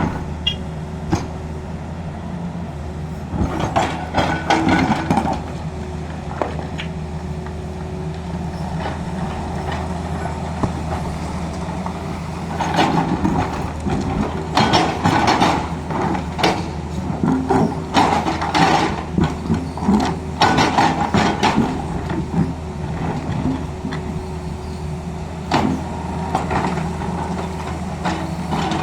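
Tata Hitachi excavator's diesel engine running steadily, with bursts of clattering and scraping as the machine works the ground, the longest stretch from about twelve to twenty-two seconds in.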